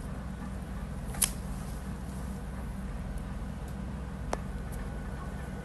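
Sharp snaps from a silicone frog stretch toy being handled: a loud one about a second in, another near the end, and a few faint ticks between, over a steady low hum.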